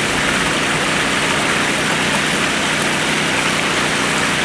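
Steady rush of river water spilling over a low weir.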